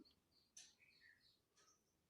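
Near silence, with a few faint, short high chirps between about half a second and a second and a half in.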